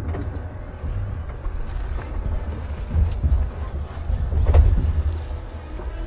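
Tesla Cybertruck rolling along a rutted sandy dirt trail, heard from a camera mounted on the outside of its body: a steady low rumble of tyres and wind, with a few knocks from bumps, loudest about three and four and a half seconds in.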